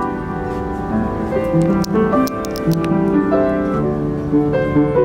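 Schimmel piano played live, slow sustained chords and melody notes, over a low rumble, with a few light clicks about two to three seconds in.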